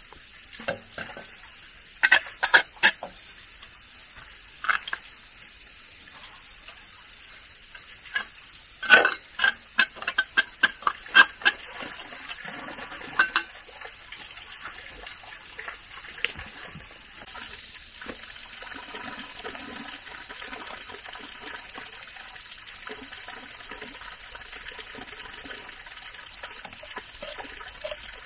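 Water running or trickling, with a run of sharp clinks and knocks in the first half, most of them clustered around nine to thirteen seconds in.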